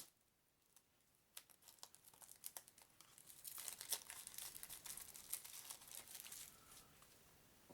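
Plastic cellophane wrap crinkling and tearing quietly as a wrapped deck of cards is unwrapped, with scattered crackles at first and then a dense run of crinkling in the middle.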